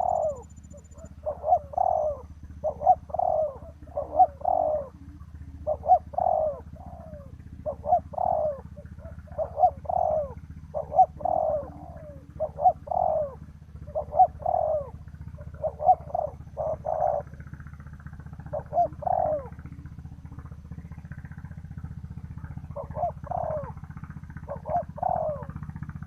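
Spotted dove cooing over and over in short phrases of two or three notes, one every second or two, with a pause of a few seconds near the end before it starts again. A steady low hum runs underneath.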